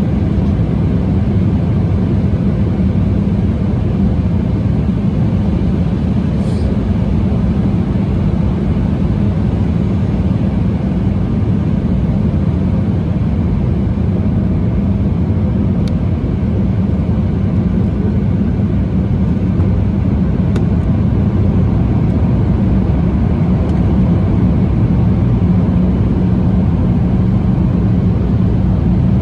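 Steady low cabin rumble inside an Embraer E175 regional jet, heard from a window seat, with a couple of faint clicks around the middle.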